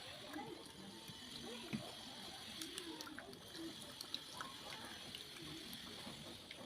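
Faint wet eating sounds of a rice-and-fish-curry meal: chewing and moist squelching, with scattered small clicks.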